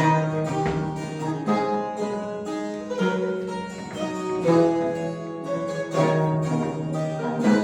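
Mandolin ensemble playing, with several held notes sounding together and accents about every second and a half.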